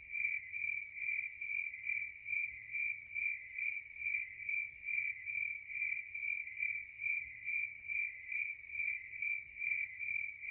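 Cricket chirping in an even, unbroken rhythm, about two to three high chirps a second.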